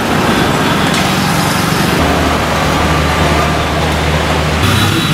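Road traffic noise with a steady low engine hum from passing vehicles.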